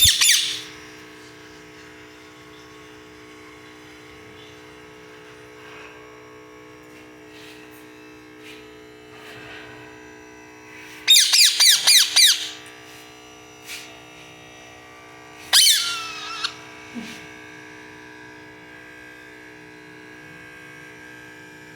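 Parrot squawking in short, harsh, high-pitched calls: one right at the start, a rapid string of calls about eleven seconds in, and another call about fifteen seconds in, over a steady low hum.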